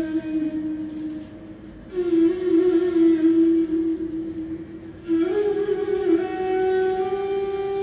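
Instrumental stage music: a slow melody of long held notes in three phrases, the last note held to the end.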